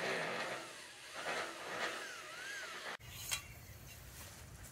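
Cordless drill driving a screw up through a metal curtain-rod bracket into the overhead beam, its motor whine rising and falling several times as the trigger is worked. It stops suddenly about three seconds in, leaving faint outdoor background and a single click.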